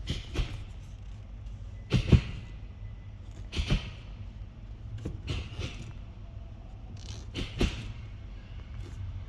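Manual gear lever of a Honda Civic Type R FD2 clicking as it is shifted through the gates, a sharp double click about every one and a half to two seconds over a low steady hum.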